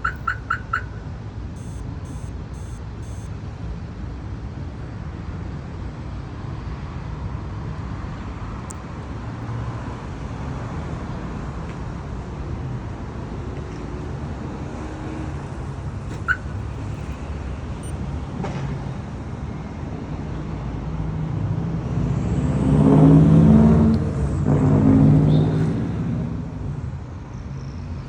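Car alarm chirping four times in quick succession, followed by four faint, very high short beeps. Then a steady outdoor traffic rumble, with a louder vehicle passing near the end.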